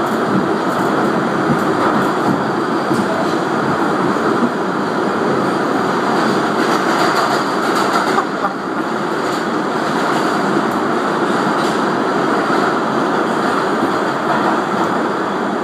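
New York City Subway E train running through a tunnel between stations: a steady, loud rumble and rattle of the car and its wheels on the rails, heard from inside the car near its end doors.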